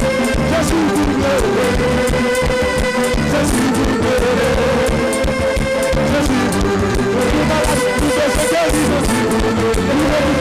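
Haitian gospel band playing live: a drum kit keeps a steady beat under guitars, with held notes from the other instruments.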